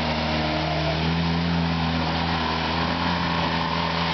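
Polaris ATV engine running under load as it ploughs through a muddy water hole, its pitch rising a little about a second in and then holding steady, with the tyres churning and splashing through the mud.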